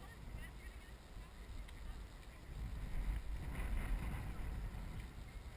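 Wind buffeting the camera's microphone: a low rumble that grows louder about halfway through and then eases off.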